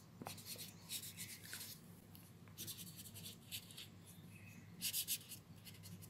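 Pen scratching across lined notebook paper in quick clusters of short strokes as words are handwritten, loudest about five seconds in, over a faint steady low hum.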